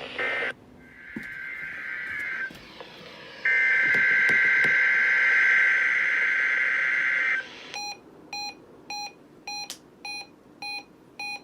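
NOAA weather radio alert tones: short warbling digital data bursts, then a loud steady data burst of about four seconds. About halfway through the receiver starts beeping, quick even beeps nearly two a second, signalling a received weekly test.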